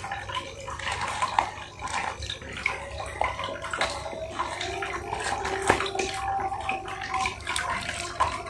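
Tap water running steadily into a bucket, mixed with crackling and tearing of a paperboard food box being pulled open.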